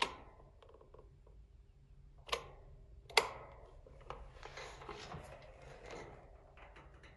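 Sharp clicks of a Comfort Zone 9-inch cradle fan's switch as it is turned on, followed by the faint, steady hum of its motor. The motor is seized, so it hums without the blades running.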